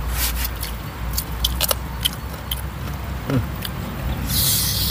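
Close-up eating sounds: small clicks and crackles of fingers picking at grilled chicken and rice on a banana leaf, over a steady low rumble, with a short hissing rustle near the end.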